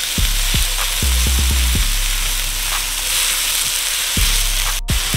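Diced onion and scallions sizzling in butter and sesame oil in a hot wok, stirred and scraped with a silicone spatula; the sizzle is a steady hiss that drops out for an instant near the end.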